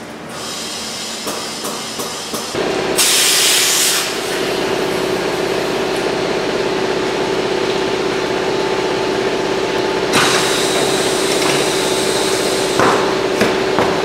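Pneumatic tire changer at work on a truck tire: a steady machine hum starts abruptly about two and a half seconds in, with a burst of compressed-air hiss about three seconds in and a longer one about ten seconds in, plus a few light knocks.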